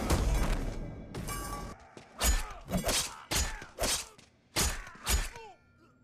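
Film fight sound effects: a heavy hit at the very start, then a quick run of about six sharp punch-and-kick impacts between two and five and a half seconds in.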